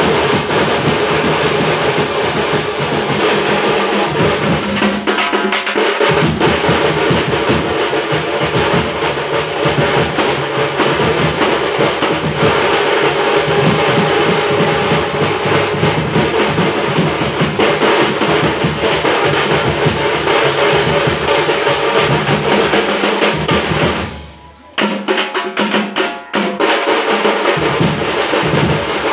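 Tamil thappattam drum troupe playing: thappu frame drums, a large bass drum and small side drums beating a fast, dense rhythm together. Near the end the playing drops out for a moment, comes back with a few single strokes, then the full beat picks up again.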